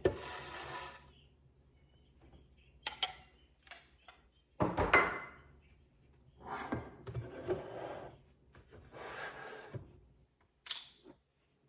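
Oats poured into a blender jar, then a series of knocks, rustles and handling noises from kitchen containers, the loudest about halfway through, with a short bright clink near the end.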